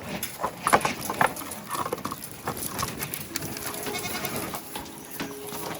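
A goat bleating once about two-thirds of the way through, among scattered clicks and rustling.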